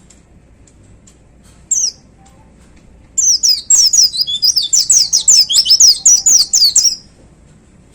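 White-eye (pleci) singing: one short chirp, then about a second and a half later a fast, high-pitched burst of twittering notes lasting nearly four seconds, the burst song that keepers call 'tembakan'.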